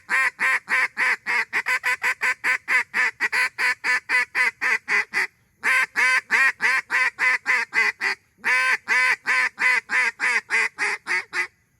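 Echo breaker duck call blown hard and loud in three long runs of rapid quacks, about five a second, with two brief pauses. This is hard comeback calling meant to break circling mallards off other ducks and pull them downwind.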